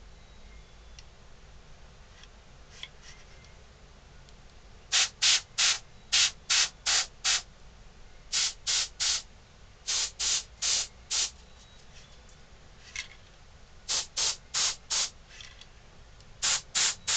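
Airbrush spraying black paint in short puffs of hiss, in quick runs of three to six with pauses between, as spots are dotted onto the carved dog head. The puffs begin about five seconds in.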